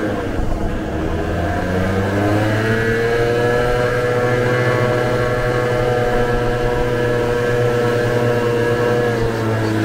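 Vespa scooter engine running under way, heard from the rider's seat. The engine note falls at the start, climbs back up about two seconds in, holds steady, and drops again near the end.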